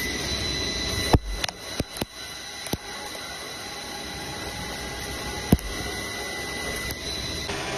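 CNC machine running with a steady, high-pitched whine under a noisy hum. Sharp clicks come five times in the first three seconds and once more about five and a half seconds in, and the whine stops shortly before the end.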